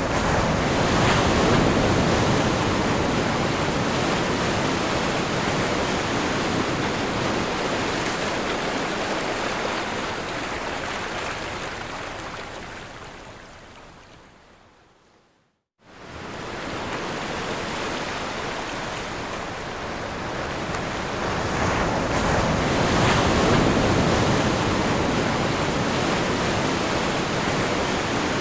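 Ocean surf breaking on a shore: a continuous rushing wash that swells and eases. About halfway through it fades out to a moment of silence, then returns abruptly and builds again.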